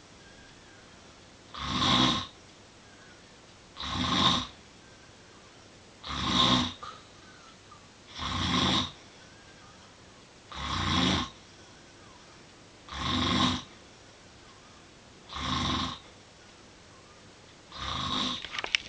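Snoring, steady and regular: eight snores about every two and a half seconds, each lasting under a second, with quiet between them.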